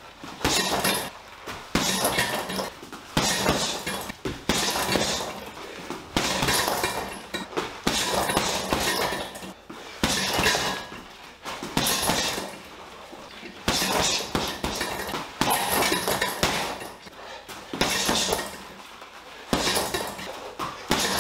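Boxing gloves striking a Leone heavy punching bag in quick combinations, a burst of hits every second or two, each burst trailing off in a jingling rattle as the bag swings.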